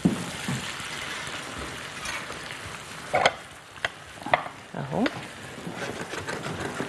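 Onions frying in butter and sugar in a frying pan, sizzling as they are stirred with a silicone spatula to caramelize them. A few short light clicks come around the middle.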